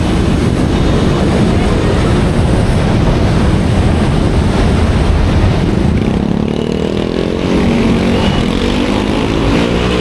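Busy street traffic, with motorcycle and tricycle engines running close by. From about two-thirds of the way through, one engine speeds up, its pitch rising slowly.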